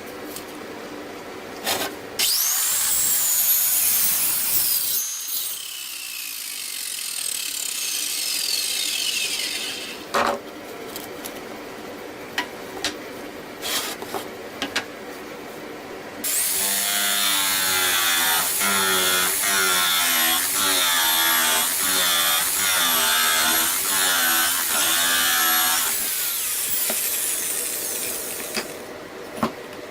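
Electric power tool working wood. It starts about two seconds in and spins down with a long falling whine. After a few scattered knocks it runs again for about ten seconds from the middle, its pitch wavering under load.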